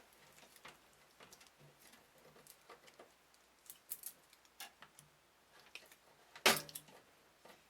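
Small, irregular clicks and ticks of a screw being tightened to fix a graphics card's mounting bracket to a PC case, with one louder click about six and a half seconds in.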